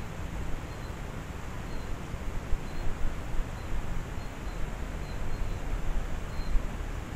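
Steady outdoor background hiss over a low rumble that swells a few times, with faint, short, high chirps every second or so.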